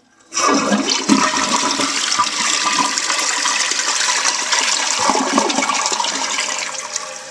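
Toilet flushing, with water rushing down through the bowl. It starts suddenly a moment in and begins to fade near the end. The toilet's flapper has just been replaced to stop it running.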